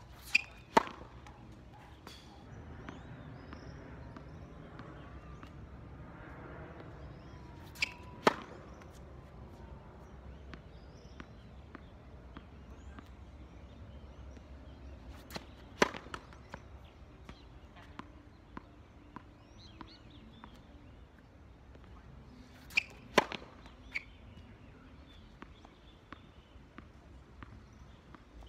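Tennis racket striking the ball on serves: four sharp cracks about seven to eight seconds apart, some followed within a second by another knock, with fainter ticks of balls bouncing between them.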